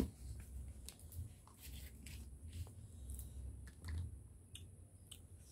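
Faint scattered clicks and rustles of eating: chewing with a full mouth and fingers splitting and stripping green leucaena (petai cina) pods.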